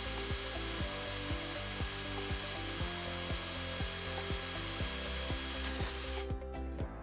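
Cordless drill with a 10mm bit running steadily as it bores a sealant hole through a length of door dam, stopping about six seconds in. Background music with a steady beat plays underneath.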